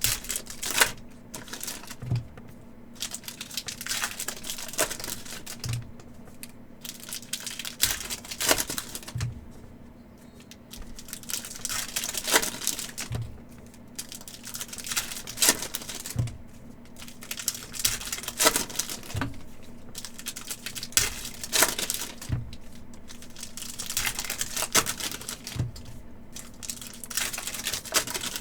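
Hockey card packs being torn open by hand: foil wrappers crinkling and tearing, with irregular sharp taps and snaps every second or two as the cards are handled, over a faint steady hum.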